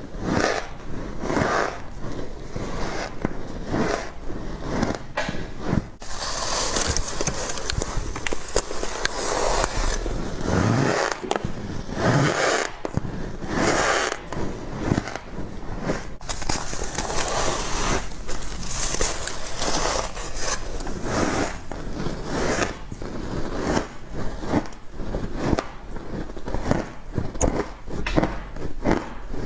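Ice frost being bitten and chewed: a continuous run of crunching, scraping strokes with no pauses.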